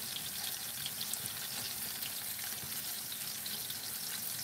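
Breaded chicken-fried steaks frying in hot shortening in a cast-iron skillet: a steady sizzling hiss.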